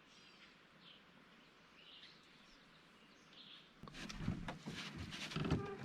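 A few faint, short bird chirps over a quiet background, then from about four seconds in a run of knocks and rustling clatter close to the microphone.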